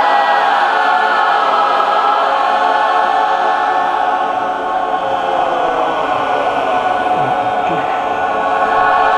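Mixed choir singing held, sustained chords in full voice, without a break.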